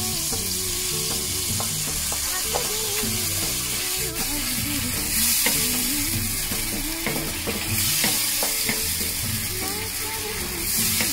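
Kinema (fermented soybeans) frying in hot oil with tomato masala in a nonstick pan, sizzling while a wooden spatula stirs and scrapes it. The sizzle grows louder about five seconds in for a couple of seconds.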